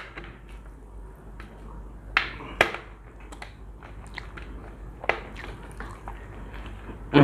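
Eating sounds from people working through plates of kacchi biryani: chewing with scattered sharp clicks, the loudest a pair about two and a half seconds in and another about five seconds in, over a low steady hum.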